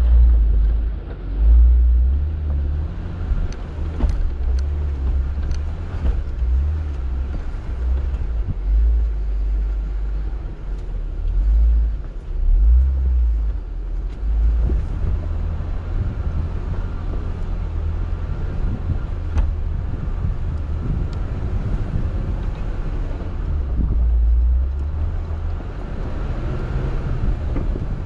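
Jeep Wrangler JL Rubicon driving over rough trail: a low, steady rumble that swells and eases, with a few sharp knocks.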